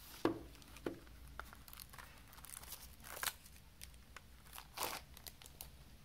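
Clear cellophane shrink-wrap being torn and peeled off a plastic CD jewel case, with irregular crinkling and crackling and louder rips about three and five seconds in. Two sharp clicks come in the first second.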